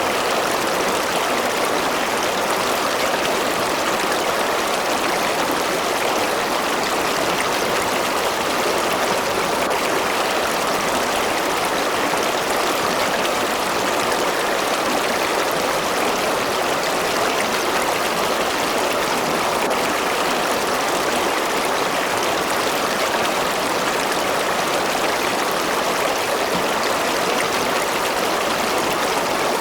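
River water running over rocks: a steady, even rush of flowing water with no change.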